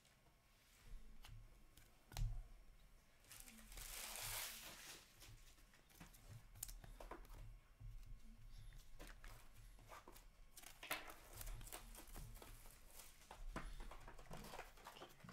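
Faint rustling, crinkling and light taps of trading cards and their packs being handled and set down on a table.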